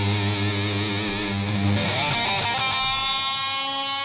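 Background music on distorted electric guitar: a low sustained chord, then about two seconds in a high note held with a wavering vibrato.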